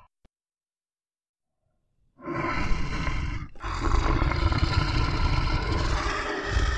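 Dead silence for about two seconds, then a loud stampede sound effect comes in: a dense low rumble with animal roars layered over it, dipping briefly about a second after it starts.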